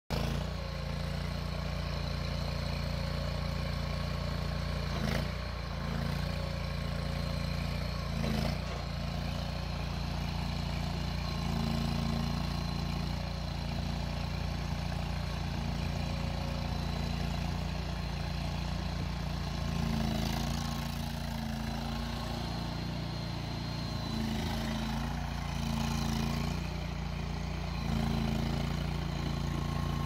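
Honda GX690 V-twin gas engine of a Cougar CG823 stand-on tracked mini skid steer loader running steadily while the machine drives and works its bucket. Two brief knocks come in the first ten seconds.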